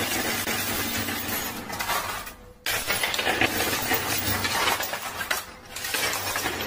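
Poker chips clattering and clinking against each other as a coin pusher machine's sweeping shelf shoves the heaped chips across the playfield: a dense, continuous clatter of many small clicks, with a brief lull about two and a half seconds in and another about five and a half seconds in.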